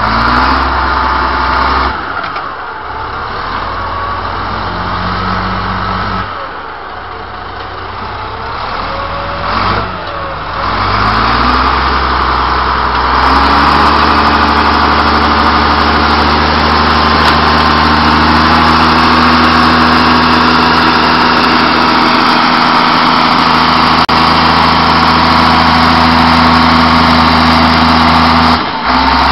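Komatsu D65P-8 crawler bulldozer's diesel engine running under load, its pitch shifting several times in the first half as the throttle changes, then holding steady and loud from about halfway through.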